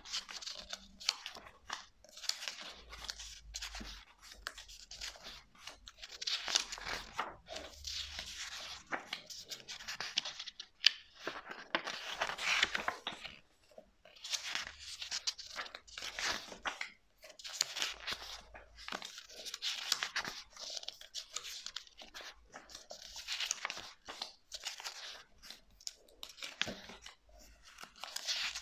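Pages of a thick paperback book turned by hand, one after another: repeated dry paper swishes and rustles every second or two, with small crisp clicks in between.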